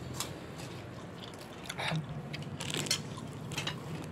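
People eating roast goat with their hands: meat being torn apart and chewed, with a scatter of short crunchy clicks and rustles.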